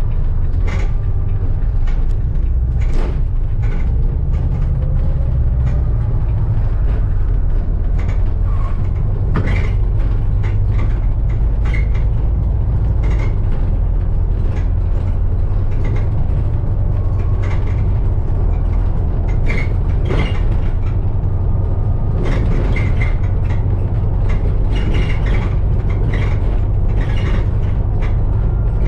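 Bus on the move, heard from on board: a steady low rumble of engine and road, with frequent short rattles and clicks from the bodywork and fittings, busier near the end.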